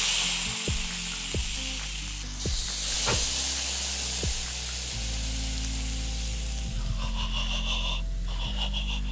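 Beef steaks sizzling on the hot grate of a charcoal grill as they are laid over the coals. The hiss is strongest in the first half and eases off later, under background music with a steady bass beat.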